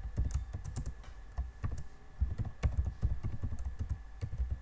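Typing on a computer keyboard: quick, irregular runs of keystrokes with short pauses between them.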